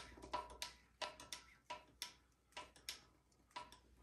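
Phillips screwdriver tightening screws into a bidet's plastic mounting plate on a toilet: a string of sharp, irregular clicks, about two or three a second.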